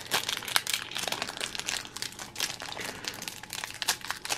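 Foil wrapper of a trading-card pack crinkling and crackling in the hands as it is worked open, in many small irregular crackles.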